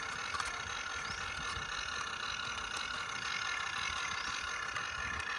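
A motor running steadily: an even hum with a constant high whine and a few faint clicks.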